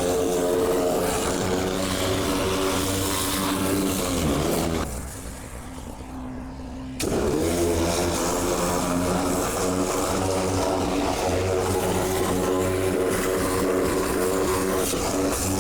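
Magnum 4000 Gold hot water pressure washer running, its engine humming steadily under the hiss of the spray. About four seconds in the spray stops for roughly two seconds, as when the trigger is let go, then it starts again with a short rise in the engine note.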